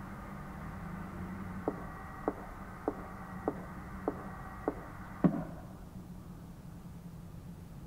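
Outdoor disaster-prevention radio loudspeaker after its chime has finished: a faint steady hum, then six soft evenly spaced clicks a little under two a second. About five seconds in, a louder click comes as the loudspeaker shuts off and the hum stops.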